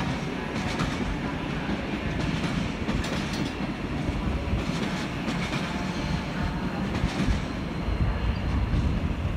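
Passenger train running, heard from aboard: a steady low rumble of wheels on rails with irregular clacks as the wheels cross rail joints and points.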